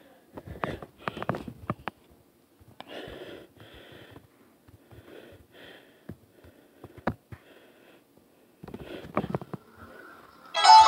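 A person moving close to a phone's microphone: scattered knocks and thumps, with a few short breaths in between. Music starts loudly right at the end.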